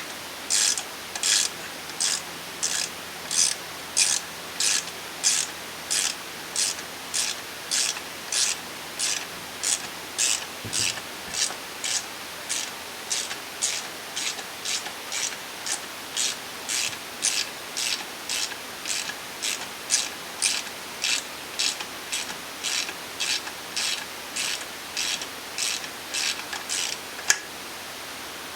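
A ratcheting wrench clicking in a steady rhythm, a burst of clicks about three times every two seconds, as it backs out a 12 mm motor-mount bolt. There is a single sharp click near the end.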